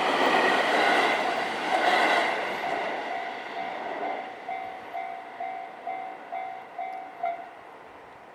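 A train runs past over a level crossing, its rumble fading over the first few seconds. The crossing's warning bell rings in an even ding, ding about twice a second, then stops about seven seconds in.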